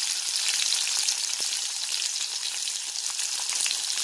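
Chopped onions sizzling in hot oil in a wok with cumin seeds, ginger-garlic and green chillies: a steady frying hiss with fine crackling pops.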